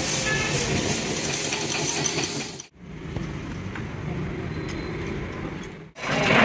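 Workshop machine tools running while machining a truck cylinder head: a steady motor hum with light metallic clinks. The sound cuts off abruptly about two and a half seconds in and again near the end, as one short clip gives way to the next.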